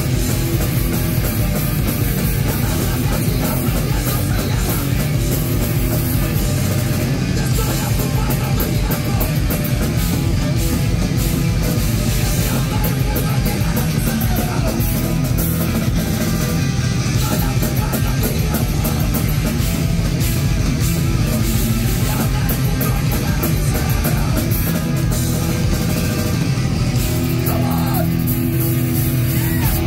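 Heavy metal band playing live, loud and continuous, with distorted guitars and drums; a rising slide comes in near the end.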